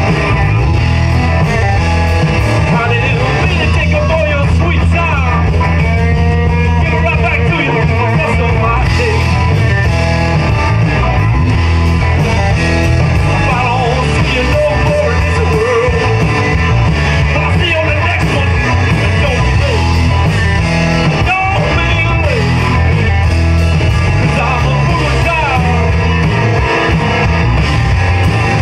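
Live rock music: a man singing into a microphone over an amplified electric guitar, with a band's steady low end underneath.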